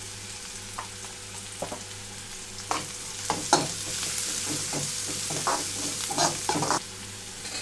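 Onions, green chillies and curry leaves sizzling in oil in a metal kadai. From about three seconds in, a slotted metal spatula stirs them, scraping and tapping against the pan in a run of short strokes.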